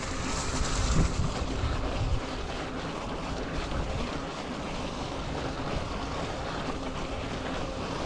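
Steady rushing noise of a fat-tire electric bike riding through snow: the wide tyres churning the snow, with wind on the microphone. It is a little louder for the first couple of seconds.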